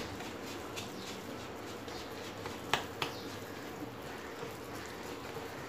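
A spoon beating thick semolina-and-curd batter in a stainless steel bowl: faint scraping with a few light clicks of the spoon on the metal, two sharper ones a little past the middle.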